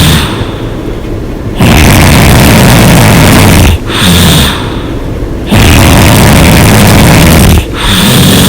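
A person snoring loudly through an open mouth in a steady breathing rhythm, about one breath every four seconds. Each breath is a loud, rough snore of about two seconds followed by a shorter, quieter breath, with two full snores.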